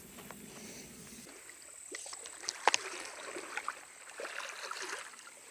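Water sloshing and small splashes in a shallow creek, irregular and fairly faint, with one sharp click about two and a half seconds in.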